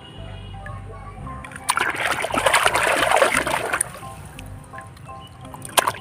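Water splashing over muddy toy vehicles as they are washed: a loud burst of about two seconds, then a short sharp splash near the end. Background music plays throughout.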